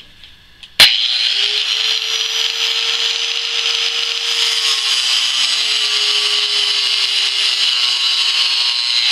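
4.5-inch angle grinder with a cutoff disc switching on with a sharp click about a second in and spinning up to a steady motor pitch, then cutting into a 1018 mild steel bar with a loud, harsh grinding hiss. The motor pitch drops slightly about four seconds in as the disc bites into the steel.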